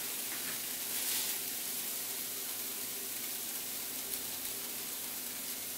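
Electric pan sizzling steadily after searing steaks, with a faint steady hum underneath.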